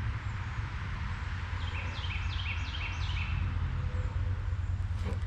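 A bird calls a quick run of about six short, downward-sliding notes, about four a second, near the middle. A steady low rumble lies under it throughout.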